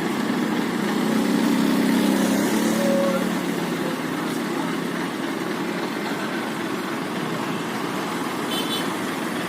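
Road traffic: vehicle engines running, one swelling louder for a couple of seconds about a second in, then a steady engine hum. A brief high chirp sounds near the end.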